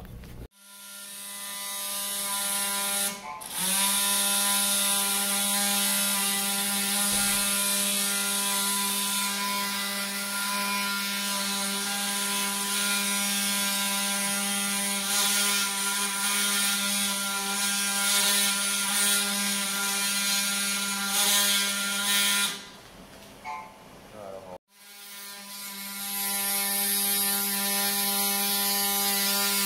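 Surgical bone saw on a robotic arm running with a steady buzz as it cuts bone during a knee replacement. It builds up over the first few seconds, drops out for about two seconds near the end and starts again.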